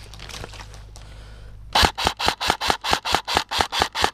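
Airsoft rifle firing a rapid string of about a dozen shots, roughly five a second, starting a little under two seconds in.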